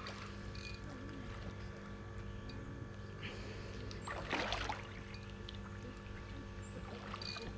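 Water splashing briefly about four seconds in as a hooked Siamese carp is brought in at the bank, over a steady low hum.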